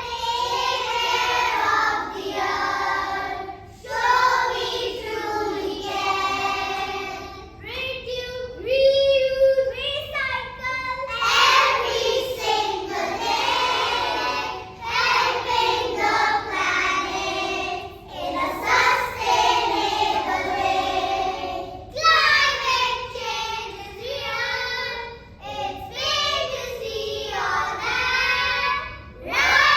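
Young children singing a song together in phrases, with a light musical accompaniment.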